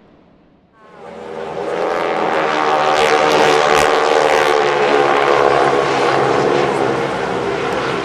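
Six single-engine propeller airplanes flying overhead in close formation: a loud, droning engine note that comes in about a second in, after a faint wind hiss, swells and holds steady.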